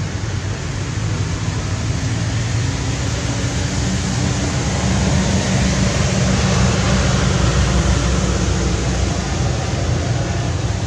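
Steady rushing noise with a low, unsteady rumble beneath it, a little louder in the middle.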